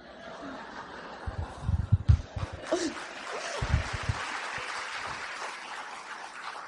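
Audience laughing and clapping, the applause growing fuller after a few seconds.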